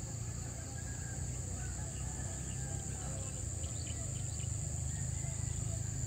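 Steady high-pitched chorus of insects over flooded rice paddies, with a steady low rumble underneath and a few faint short calls scattered through it.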